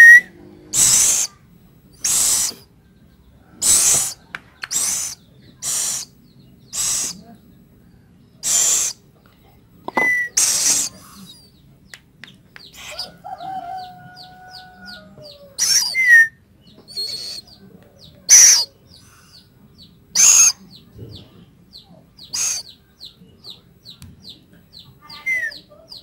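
Scops owl chicks giving raspy hissing calls in short bursts, about one a second at first and then more spaced out, as they are hand-fed. A few brief high chirps come between the hisses, with a faint fast ticking in the second half.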